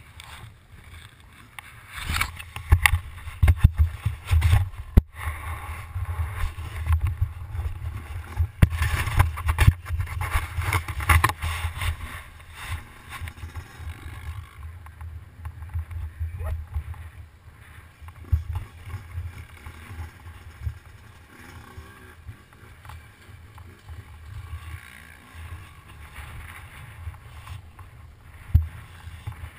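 Suzuki RM85 two-stroke dirt bike running, heard as a muffled low rumble through a helmet-mounted GoPro's housing, with frequent knocks and wind buffeting, busiest in the first half.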